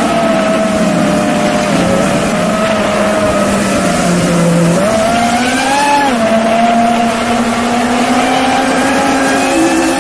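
FPV racing drone's brushless motors and propellers whining, heard from the camera mounted on the drone. The pitch wavers with throttle and climbs briefly about five to six seconds in before dropping back.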